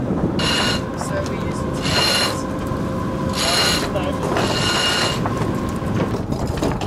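Deck winch on a sailing catamaran being wound in, in four short bursts about a second and a half apart, over steady wind and water noise.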